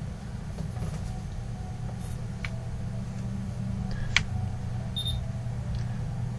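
Steady low hum with a few faint clicks, the loudest about four seconds in, and a brief high beep about five seconds in.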